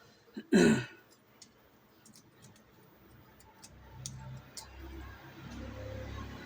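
Light scattered clicks and taps of small tools against a phone's circuit board during a charging-port repair, with a short loud voice-like sound about half a second in and a low steady hum building in the second half.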